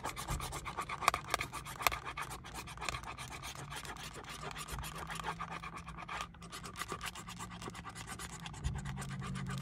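A coin scratching the coating off a Mystery Crossword scratch-off lottery ticket in rapid, repeated back-and-forth strokes.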